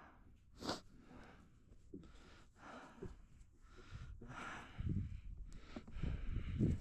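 A man breathing heavily close to the microphone, in short hissy breaths with a sharp nasal snort just under a second in. The breathing is from a man in the middle of an asthma flare. Low rumbling handling noise comes in over the last couple of seconds.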